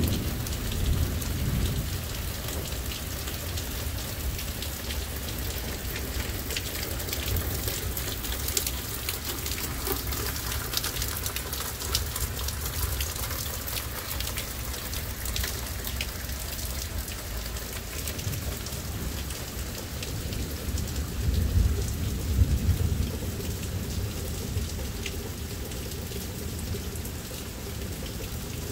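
Heavy rain pouring steadily, with low thunder rumbling at the start and again about three-quarters of the way through, where the second rumble is the loudest point.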